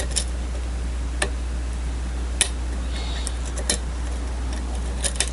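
Sharp metallic clicks of a lock pick working the pins of a challenge lock, a few scattered ticks roughly a second apart.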